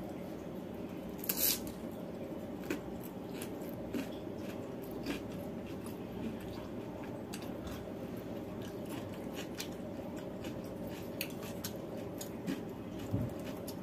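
A person eating rice with her fingers from a steel bowl: soft chewing and mouth sounds with scattered small clicks and smacks, one sharper click about a second and a half in, over a steady low background hum.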